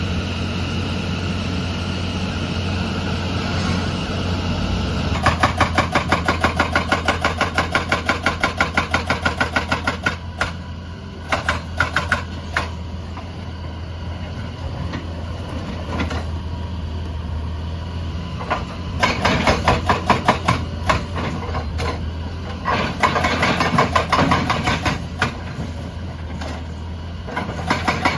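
Excavator's diesel engine running steadily while its hydraulic breaker hammer pounds in rapid, evenly spaced strikes: a long run starting about five seconds in, then shorter bursts later, with a few single knocks in between.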